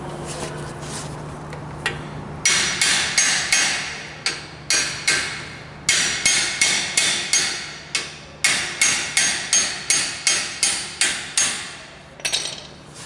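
Claw hammer striking the Jeep's front brake caliper in quick runs of sharp, ringing metal blows, about three a second with short pauses, starting a couple of seconds in. The blows knock stubborn new brake pads into place in the caliper.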